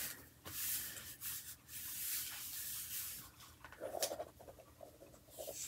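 Paper rubbing and sliding under the hands as cut-out collage pieces are pressed and smoothed flat onto the page: a dry, irregular rustle with short scratchy strokes.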